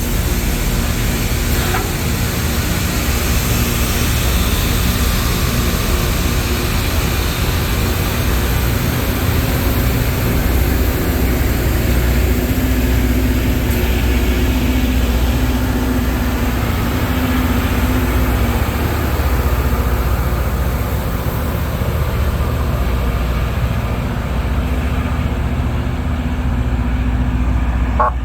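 LORAM rail grinder passing on the track, its grinding stones on the rails making a loud, steady grinding rush over the low run of its diesel engines.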